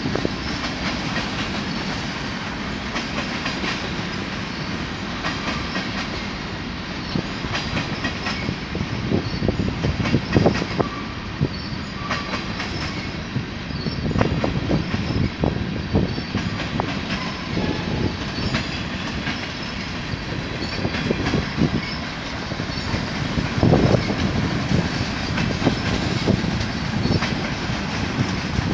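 Freight train's covered hopper cars rolling past with a steady rumble, steel wheels clacking over rail joints in repeated clusters.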